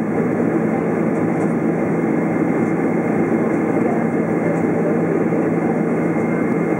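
Steady cabin noise of a Boeing 767-400ER climbing out after takeoff: the rumble of its underwing jet engine and the airflow, heard from a window seat beside the engine, with a faint steady high whine over it.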